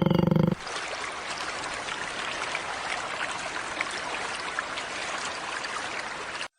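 An animal's loud, pitched call breaks off about half a second in. A steady rushing like running water follows and stops abruptly near the end.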